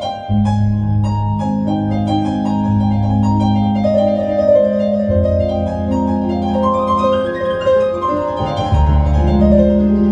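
Piano played solo: long low bass notes that change a few times, under quick runs of notes that climb and then fall back down.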